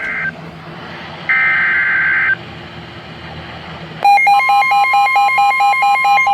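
Weather-radio emergency alert tones. The raspy two-tone data burst of an EAS/SAME header, the end of one burst and then a second lasting about a second, with radio hiss between. About four seconds in, a loud, fast-pulsing electronic beep starts, and a steady high warning tone joins it a moment later, marking the start of the alert.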